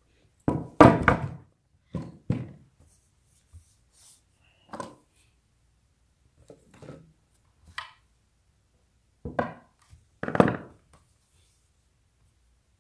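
Skateboard deck being handled and set down on a table: a series of short wooden knocks and thuds with quiet between, the loudest about a second in and again near ten seconds.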